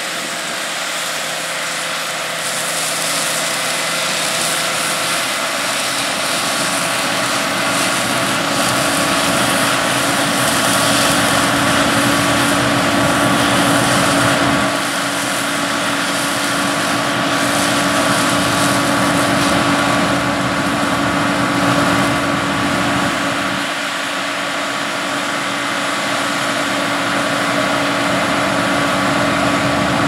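CLAAS Lexion combine harvester and Challenger MT755C tracked tractor running side by side at work in wheat, the combine unloading grain into a Kinze 1100 grain cart on the go: a steady, loud machinery drone with a steady whine through it that swells and eases slightly.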